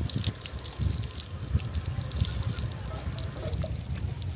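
Water splashing and trickling in short irregular bursts, over a steady low rumble of wind on the microphone.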